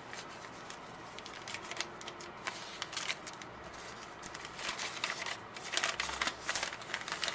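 Wrapping on a bar of handmade soap rustling and crinkling as it is handled and opened, with many short crackles that come thicker in the second half.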